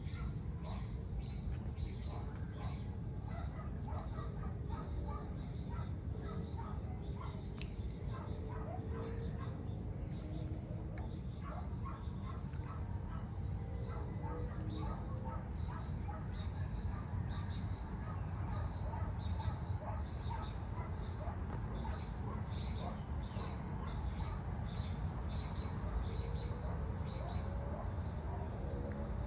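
Evening outdoor ambience: many small birds chirping in repeated short notes over a steady high insect drone and a low rumbling hum. A few drawn-out, gliding distant calls rise out of it now and then.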